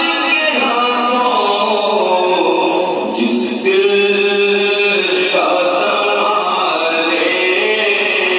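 A man singing an Urdu naat unaccompanied into a microphone, drawing out long held notes that slide slowly between pitches.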